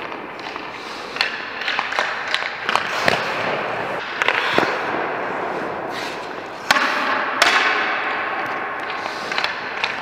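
Ice hockey goalie's skates scraping on rink ice, with a string of sharp clacks and knocks from the goalie's stick, echoing in the hollow arena. The two loudest knocks come about two-thirds of the way through.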